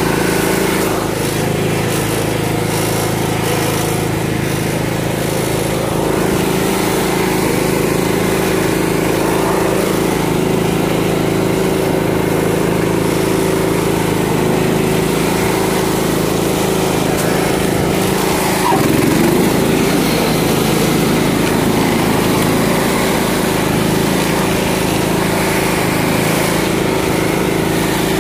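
The 15 hp OHV engine of a John Deere riding lawn tractor running steadily, briefly a little louder about two-thirds of the way in.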